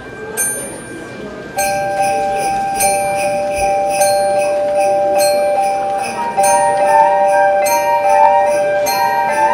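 Student symphonic wind band playing. Near the start two single struck notes ring out on metal-bar mallet percussion; about a second and a half in, the band comes in with held chords over a steady pulse of short, high metallic strikes.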